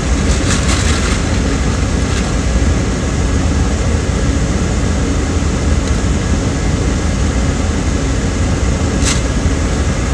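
Steady in-cabin rumble of a car's idling engine and air-conditioning blower, with a couple of short clicks about a second in and near the end.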